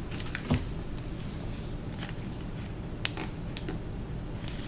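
A few light clicks and a soft thump from small craft pieces being handled and set down on a work surface, over a steady low hum.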